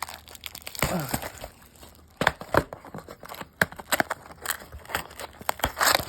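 Packaging of a hockey card box being handled and opened: irregular crinkling, crackling and tearing, with sharp clicks scattered throughout.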